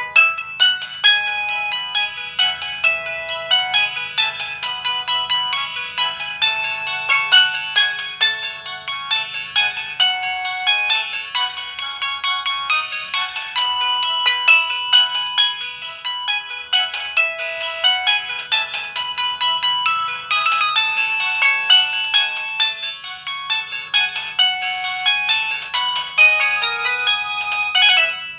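An LG ringtone melody playing from a Samsung Propel SGH-A767 phone's speaker: a long tune of quick, bright synthesized notes that fades out near the end.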